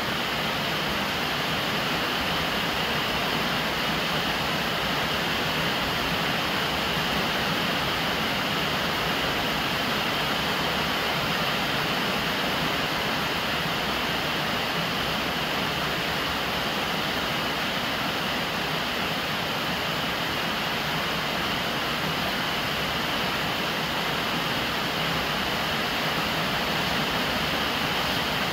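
Rainwater gushing from a plastic downpipe and splashing onto the lid of a large water jar, over steady rainfall. An even, unbroken rush of water.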